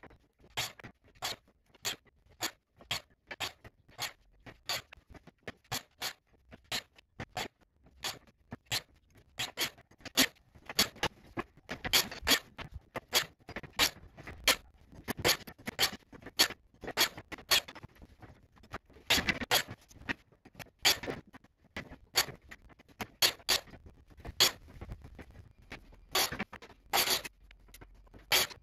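Small wooden blocks and strips clacking and knocking against each other and the steel tabletop as they are handled, stacked and slid into place: a quick, irregular run of light clicks and knocks.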